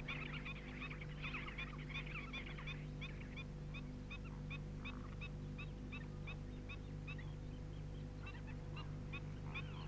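A flock of waterbirds calling, with many short, quick calls overlapping at first and then coming more sparsely, over a steady low hum.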